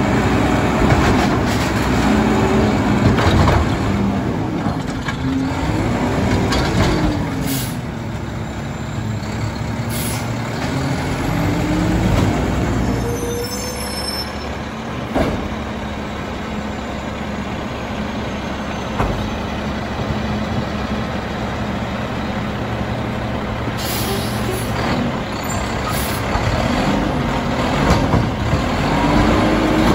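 Mack LEU garbage truck's engine revving up and falling back again and again as the McNeilus side-loader arm and packer work, steadier through the middle, with a few short air hisses.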